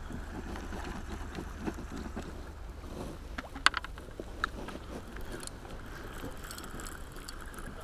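Steady low rumble of wind buffeting the microphone, with a few sharp clicks and taps a little past halfway as a fishing rod is set down on the stone pier.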